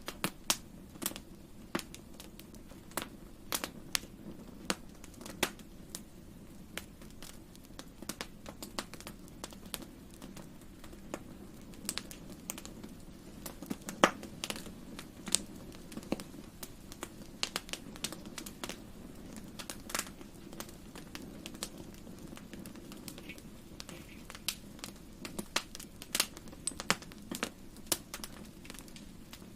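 Wood fire crackling in a fireplace: irregular sharp pops and snaps, several a second, over a low steady rumble of the burning fire.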